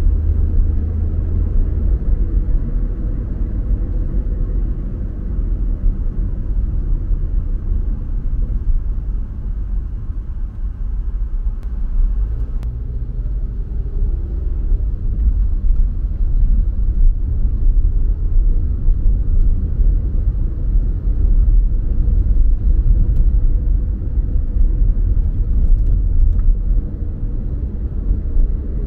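A car driving along a road: a steady low rumble of tyre and engine noise that swells and eases a little.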